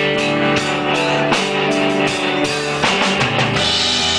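Live rock band playing a slow song between sung lines: drum kit keeping a steady beat under guitar and held instrument notes.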